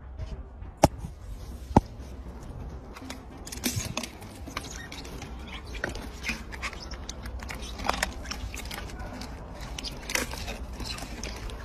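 A hippopotamus chewing a mouthful of bananas: many short wet clicks and smacks, with two sharp loud clicks about one and two seconds in. A steady low rumble runs underneath.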